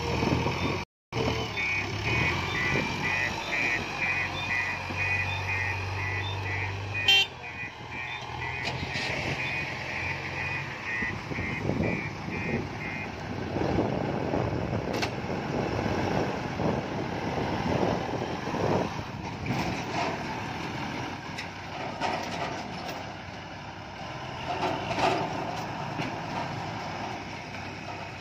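Heavy diesel machinery running, with a vehicle's reversing alarm beeping steadily for the first dozen seconds or so. After that the engines run on alone, rougher and noisier.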